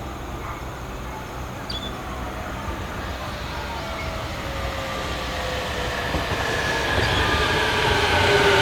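JR Kyushu electric train approaching, its running noise growing steadily louder, with a whine of several steady tones that strengthens as it nears.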